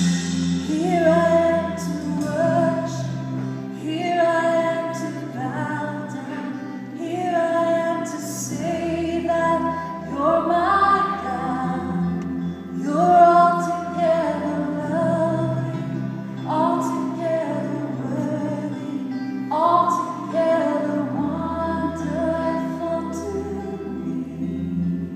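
A woman sings the chorus of a contemporary worship song into a microphone with a live band. Each sung line begins with an upward slide in pitch. The band holds chords under her and plays a bass line that moves every few seconds.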